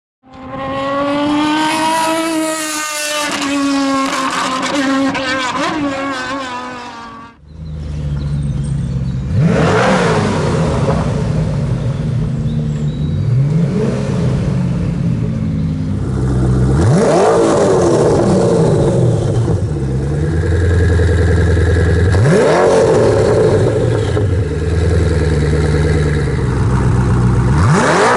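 Koenigsegg One:1's twin-turbo V8 idling and being revved five times, each rev rising sharply in pitch and then falling back to idle. Before it, for the first seven seconds or so, a separate wavering pitched tone plays and then cuts off abruptly.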